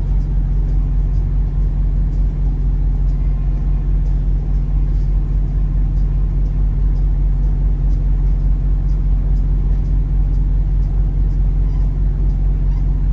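A semi truck's diesel engine running steadily at low speed, a constant low rumble with no revving, heard from inside the cab.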